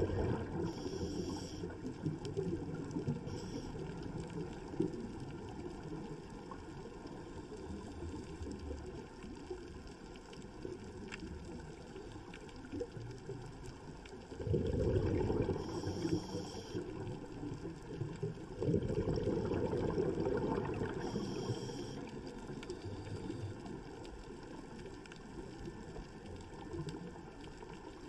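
Scuba diver's exhaust bubbles heard underwater: a low, rough bubbling rumble that swells into louder bubbling twice around the middle, with a few brief high hisses.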